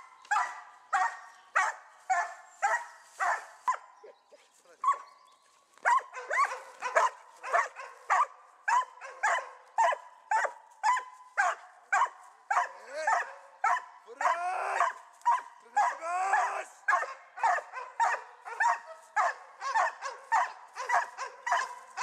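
A dog barking repeatedly, about two barks a second, at a helper in a padded bite suit, as in a hold-and-bark exercise. About four seconds in it pauses for a couple of seconds. Midway some barks are drawn out into higher, whining yelps.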